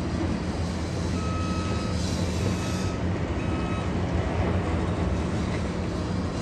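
Low, steady diesel drone of a distant EMD switcher locomotive hauling a freight train. Three short, high electronic beeps sound over it in the first four seconds.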